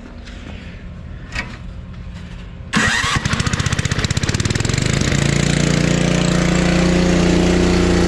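1976 Ariens Sno-Thro snowblower engine starting: about three seconds in it catches suddenly with rapid firing, then settles into a steady run.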